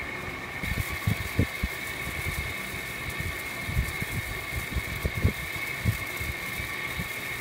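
Blower fan of a homemade chilled-water fan coil unit, salvaged from a window-type air conditioner, running with a steady high tone. Irregular low thumps come from its air blowing on the microphone.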